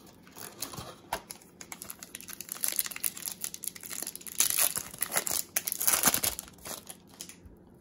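Foil wrapper of a Topps Stadium Club baseball card pack being torn open and crinkled by hand: a rapid run of crackles that grows louder through the middle and dies away near the end.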